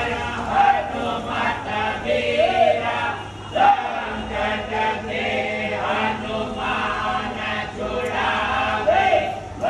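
Chant-like singing by several voices over a steady low drone.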